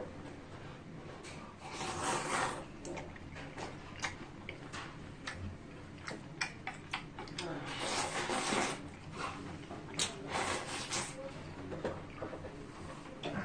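A man slurping and chewing spicy jjamppong noodles, with several long slurps (the biggest about two seconds in and about eight seconds in) and small clicks of chopsticks against the dishes in between.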